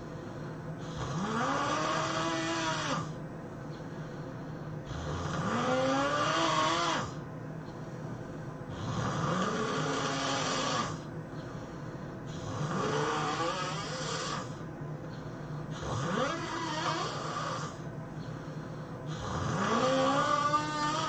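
A person snoring heavily in a steady rhythm: six loud snores of about two seconds each, one every three and a half to four seconds. Each snore has a tone that rises and then holds, over a raspy rush of breath.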